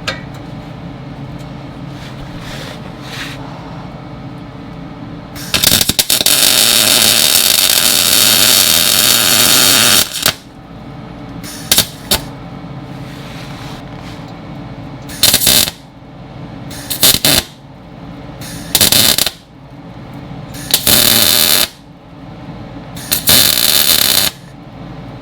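Handheld power tool run against a steel exhaust pipe: one long run of about four seconds, then six short bursts, each switched on and off sharply.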